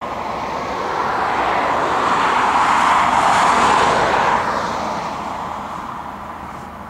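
Airbus A330-200's Rolls-Royce Trent 700 turbofan engines at take-off thrust during the take-off roll. The loud jet roar swells to a peak about three to four seconds in, then fades.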